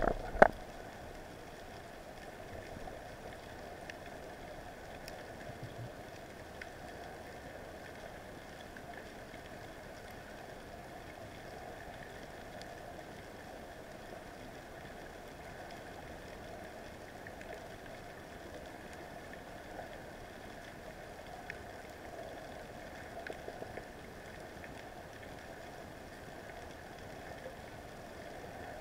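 Underwater ambience picked up through a dive camera's housing: a steady hiss with a few faint clicks and crackles. A single sharp knock comes right at the start.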